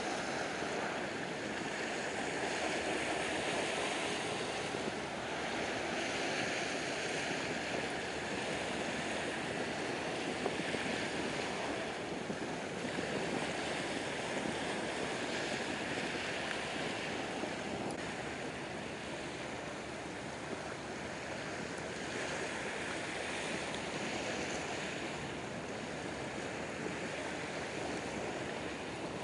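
Small waves washing onto a shingle shore: a steady wash that swells and eases every few seconds.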